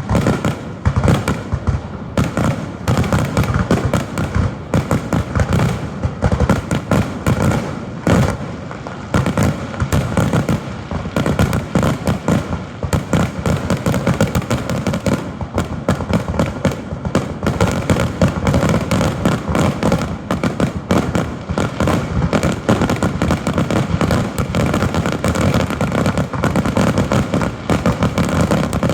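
Fireworks finale: a dense, continuous barrage of rapid bangs and crackling shell bursts.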